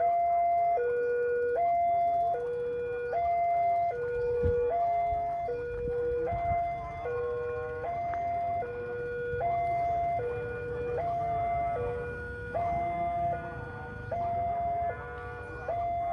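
Electronic two-tone warning alarm of an Indonesian railway level crossing, swapping steadily between a high and a low tone a little under once a second, signalling that a train is coming and the barrier is down.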